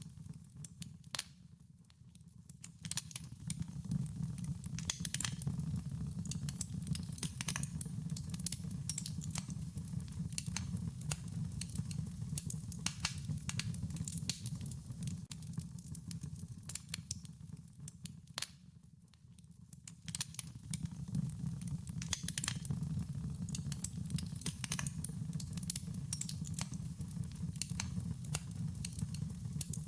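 Wood fire crackling: frequent sharp pops and snaps over a steady low rumble of burning. The crackle and rumble fade briefly twice, about two seconds in and again just before the twenty-second mark.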